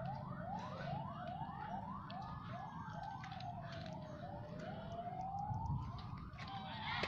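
Emergency-vehicle sirens: a fast yelp of short rising sweeps, about two to three a second, that fades out about halfway through, over a slower wail that falls and then rises.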